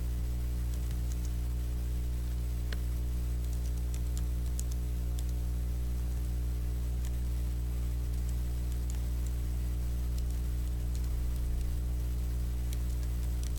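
Faint, irregular keystrokes of typing on a computer keyboard, over a steady low electrical hum.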